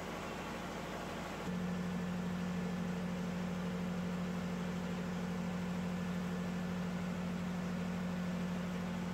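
A steady low machine hum with one strong, even tone, coming in about a second and a half in and holding level.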